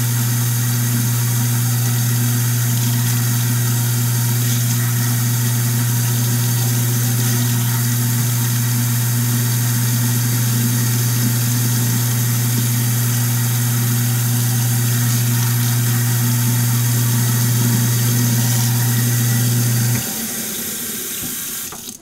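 Kitchen sink garbage disposal running, grinding sprout waste with a loud steady motor hum while tap water pours into the drain. The motor shuts off about 20 seconds in, and the water stops shortly after.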